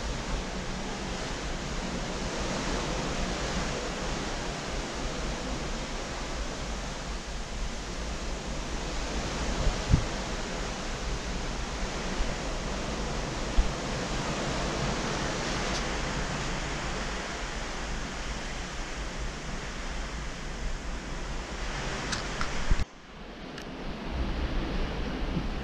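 Steady rush of wind and sea water from the deck of a cruise ship under way, with low wind buffeting on the microphone and a couple of short thumps. About 23 seconds in it drops suddenly to a quieter, softer rush.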